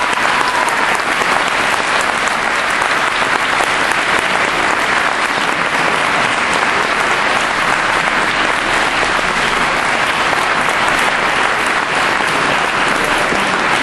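A congregation applauding: many people clapping together, steady and loud without letting up.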